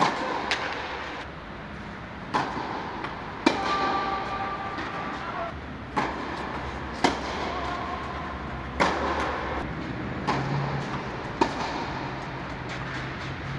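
Tennis balls struck by rackets in a rally, a sharp pop every one to two seconds, each with a short echo inside a large indoor tennis hall.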